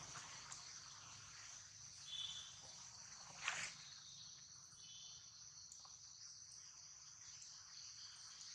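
Faint, steady high-pitched drone of an insect chorus. Two short high chirps come about two and five seconds in, and a brief sharp noise, the loudest thing, about three and a half seconds in.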